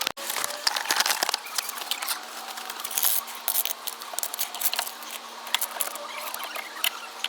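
Irregular small clicks, taps and scraping, many in quick succession, with a brief gap just after the start.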